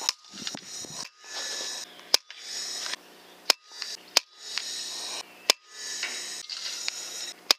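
Rifle shots: about six single sharp cracks spread through the stretch, with a steady hiss between them that starts and stops abruptly.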